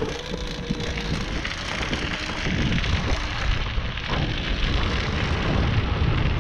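Nanrobot Lightning wide-wheel electric scooter riding fast over a gravel path: a steady rough rumble and crackle of the tyres on the gravel, with the scooter shaking from the vibration.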